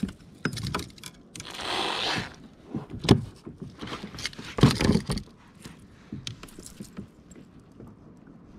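Handling noises on a kayak: light clicks, scrapes and a short rustle, with louder knocks about three and five seconds in.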